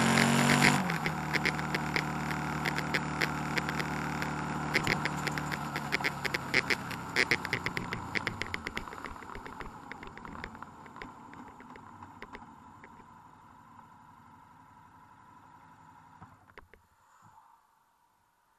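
Vehicle and road noise with an engine at the start and many rattling clicks. It all fades steadily over about sixteen seconds, then stops abruptly near the end.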